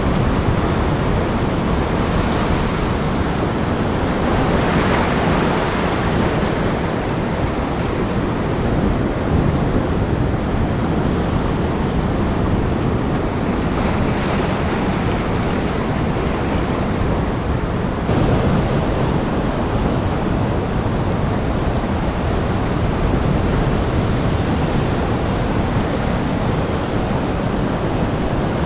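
Heavy surf breaking on a rocky shore: a continuous rush of waves, swelling a little every several seconds, with wind buffeting the microphone.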